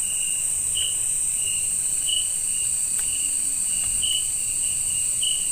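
Night insect chorus: a steady high-pitched trill with a lower chirp repeating two to three times a second.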